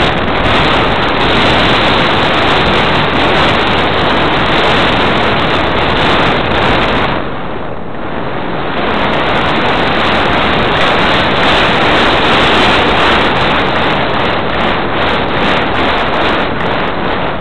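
Loud, steady rush of wind over the microphone of a camera towed in flight behind a radio-controlled model plane, easing briefly about halfway through.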